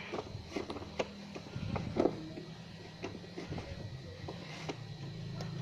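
Scattered light clicks and knocks of kitchen things being handled, over a low steady hum that grows a little near the end.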